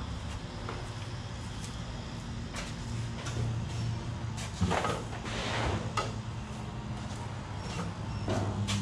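Steady low hum of a car repair shop, with scattered sharp knocks and two short sliding, scraping noises, one about halfway through and one near the end.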